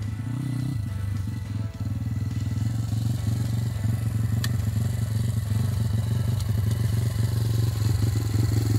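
Kayo 140 pit bike's single-cylinder four-stroke engine running steadily at low revs, with a brief wavering of revs near the start, getting louder toward the end as the bike comes close.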